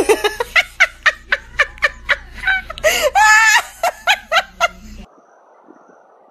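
A person laughing in quick rhythmic bursts, about three to four a second, with a higher drawn-out laugh about three seconds in. It cuts off abruptly about five seconds in, leaving only a faint hiss.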